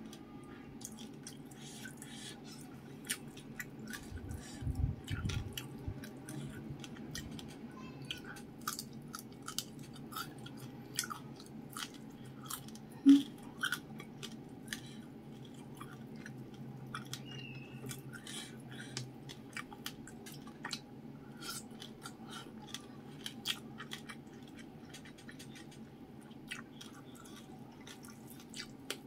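Close-miked chewing of crispy fried fish and rice eaten by hand: many small crunches and wet mouth clicks, with one sharp, much louder click about halfway through. A low steady hum runs underneath.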